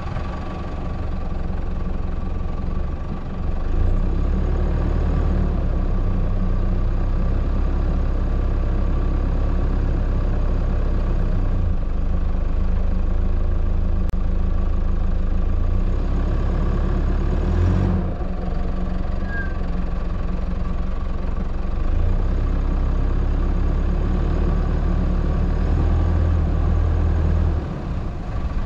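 Four-wheel drive's engine running at low speed, a steady low drone as it crawls over a rough grassy dirt track.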